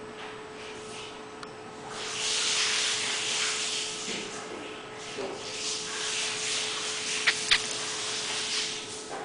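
Rubbing and rustling handling noise that starts about two seconds in and rises and falls unevenly, with two sharp clicks close together about seven seconds in, over a steady faint hum.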